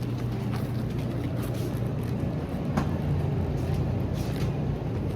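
Steady low hum of motor vehicle traffic, with scattered light clicks and taps.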